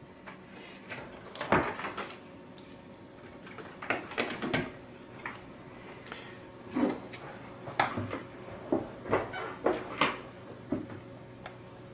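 Handling noise from a small plastic handheld oscilloscope and its power cable: scattered light clicks and knocks at irregular intervals as the case and the cable's plug are picked up and fitted together.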